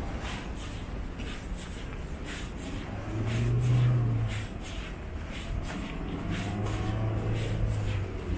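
Road traffic with a vehicle engine humming past about three seconds in, the loudest moment, and again more softly near the end, over footsteps on paved sidewalk at walking pace, about two steps a second.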